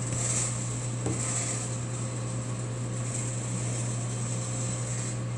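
ASRw-01 hot-air coffee sample roaster running early in a roast: a steady hum from its fan and rotating roasting cage, with a constant hiss of blown air and green beans tumbling in the cage.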